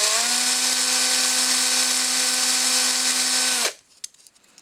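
Small electric hobby drill with a 1.2 mm bit spinning free while the bit is cleaned: a steady whine that rises a little in pitch just after the start, then cuts off suddenly about three and a half seconds in.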